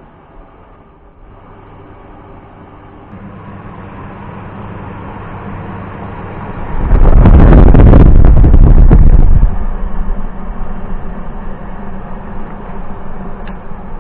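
JET AFS-500 air filtration unit's fan motor starting and spinning up, a steady hum growing gradually louder; it is running again after its failed circuit board was bypassed with a simple switch. About seven seconds in, a loud rush of air buffets the microphone for about two and a half seconds, then the fan runs on steadily.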